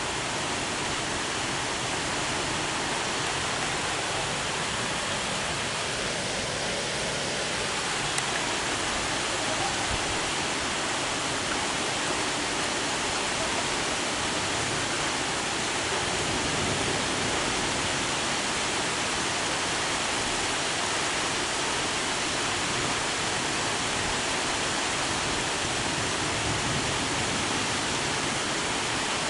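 Heavy thunderstorm rain pouring steadily, an even hiss that neither rises nor falls.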